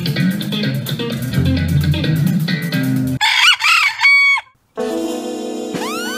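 A rooster crows once, a rising-and-falling call that ends on a held note, about three seconds in. Before the crow is plucked guitar music with a steady beat; after a brief silence, music with long held tones starts.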